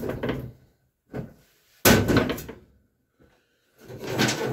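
Hammer tapping spindle shafts down through their new bearings and spacers in a steel mower deck: a few sharp metallic knocks, the loudest about two seconds in.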